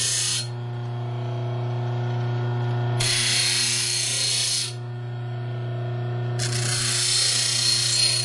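6-inch bench grinder motor running with a steady hum while a steel pick blank is pressed against the wheel in repeated passes. Three grinding passes of about one and a half to two seconds each give a loud hiss: one ending about half a second in, one around three to five seconds in, and one starting about six seconds in.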